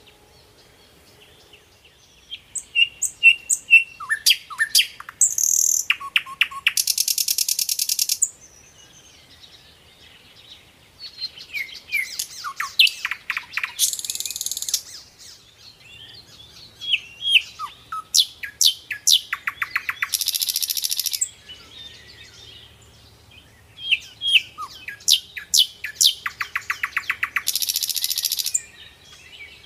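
A songbird singing in four repeated phrases, each a run of sharp chirps and quick sweeping notes that ends in a fast rattling trill, with short quiet gaps between the phrases.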